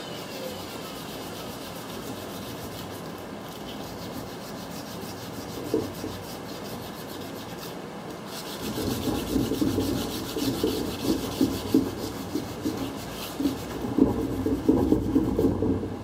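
Sandpaper rubbed by hand over a five-spoke metal trailer wheel, sanding off rust stains. The rubbing is light at first, then about halfway through turns into louder, quicker strokes that stop just before the end.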